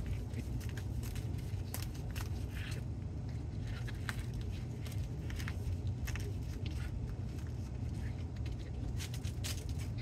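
Steady low hum with scattered light rustles and taps from a cardboard-framed pleated air filter being handled and carried.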